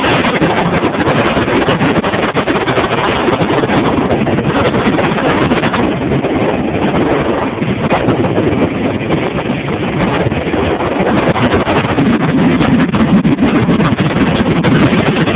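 Motorboat underway at speed: a steady engine drone and hull rushing over the water, mixed with heavy wind buffeting the phone's microphone. It gets slightly louder near the end.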